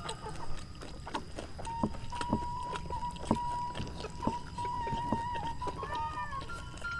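Close eating sounds of a hand-eaten meal: chewing and wet mouth clicks, with a long wavering tone in the background and a rooster crowing near the end.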